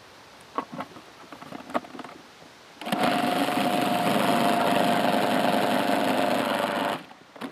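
A few clicks and knocks as the food processor's lid and pusher are handled, then its electric motor runs steadily for about four seconds, blending a hazelnut, butter, sugar, flour and egg cake dough, and cuts off abruptly.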